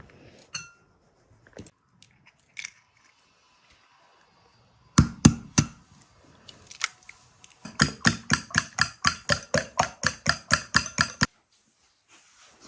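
A few sharp clicks, then a fast even run of clicking strokes, about five or six a second for some three and a half seconds, that cuts off suddenly.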